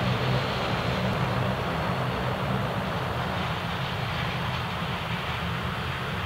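Boeing 757-200 jet engines running steadily as the airliner rolls along the runway: a continuous low rumble with a broad roar above it, easing slightly over the few seconds.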